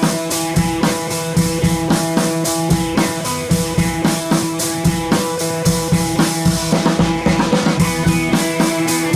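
Background music: a rock-style track with a steady drum beat and guitar.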